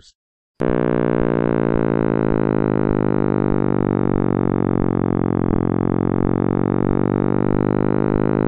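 Sonification of the cosmic microwave background, presented as the sound of the Big Bang: a loud, steady synthesized hum, dense with overtones, starting about half a second in.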